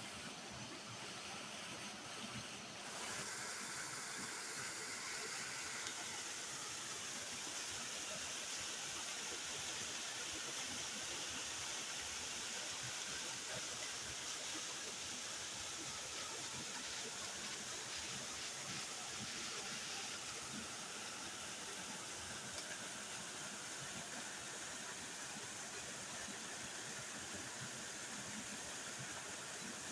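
Waterfall: a steady rush of falling water, turning a little louder and brighter about three seconds in.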